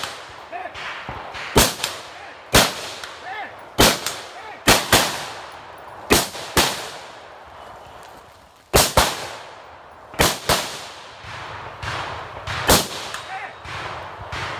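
Rifle shots from an AR-style carbine: about a dozen sharp shots fired singly and in quick pairs, each with a short echo, with a pause of about two seconds near the middle.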